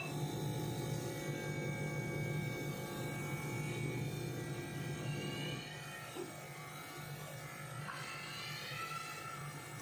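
A steady low hum from a small motor, dropping in level about halfway through.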